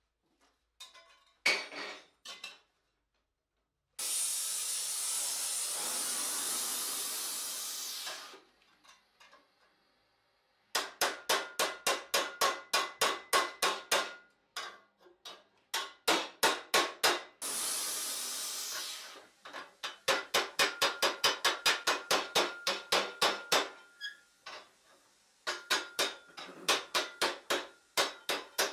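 Hand hammer striking a steel armour visor held over a stake, in quick runs of ringing metal-on-metal blows. Twice the blows give way to a few seconds of steady loud hiss.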